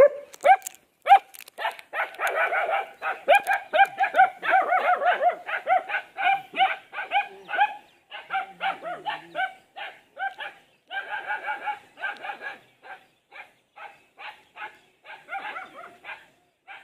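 Dogs barking in a rapid, overlapping volley, densest in the first half and again about eleven seconds in, then thinning to single barks about every half second.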